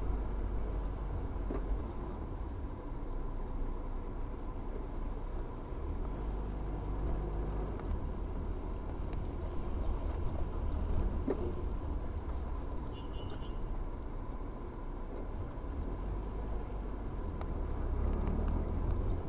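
Steady low rumble of a car driving on a city road, heard from inside the cabin through a dashcam, with a faint steady high hum. A brief faint beep sounds about two-thirds of the way through.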